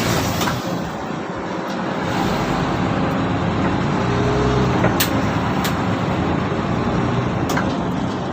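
Mercedes-Benz O530 Citaro city bus's diesel engine running as the bus drives, with a few sharp clicks in the second half.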